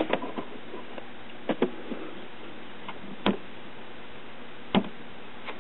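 A few sharp, isolated clicks from a hand working the controls of a Sencore CRT tester, spread a second or more apart over a steady low hiss.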